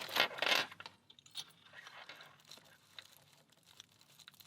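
Metal US mail pouch lock and its key being handled: a short scrape in the first second, then scattered faint metallic clicks and rattles as the lock is worked.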